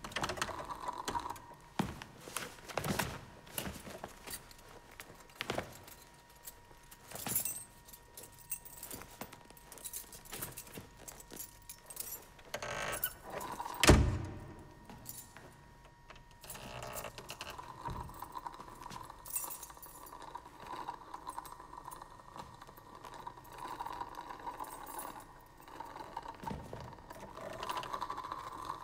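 Wooden door and its latch: scattered clicks and rattles, then a loud thud about halfway through as the door is pushed shut. A steady hum with faint rattling runs on after it.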